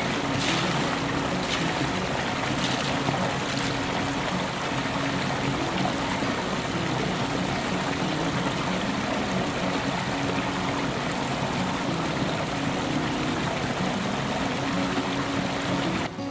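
Creek water pouring through a small gap in a stone dam, a steady rushing splash. Near the start come a few light taps, rubber boots stepping along the stone.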